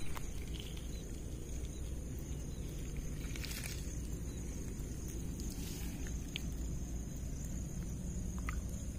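A steady low rumble, with a couple of brief splashes as a hand grabs a snakehead fish wriggling in shallow muddy water.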